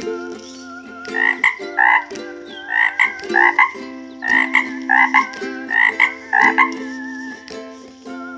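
A frog croaking about a dozen times, mostly in quick pairs, over a light ukulele-like background tune.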